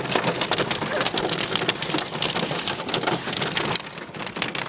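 Hail pelting a car, heard from inside the cabin: a dense, continuous patter of hard ice pellets striking the body and windshield.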